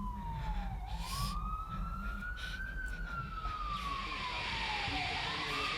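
An emergency vehicle's siren wailing, its pitch sliding slowly down, then up, then down and up again, over a low steady rumble.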